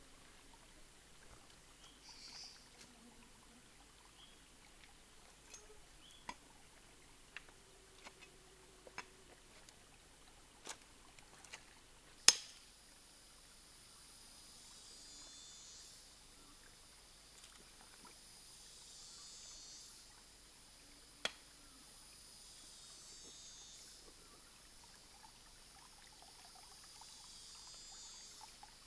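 Stones clicking and knocking as they are handled in a shallow rocky stream over a faint trickle of water, with one sharp, loud knock about twelve seconds in. From about halfway, a high insect buzz swells and fades in waves.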